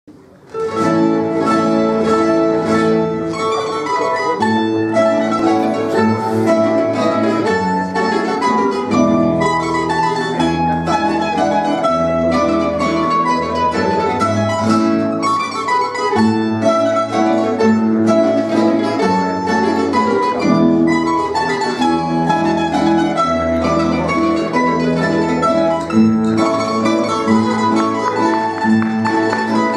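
Aragonese jota played by a rondalla, an ensemble of plucked strings: guitars with bandurria- and laúd-type lutes. They strike up about half a second in and keep playing steadily.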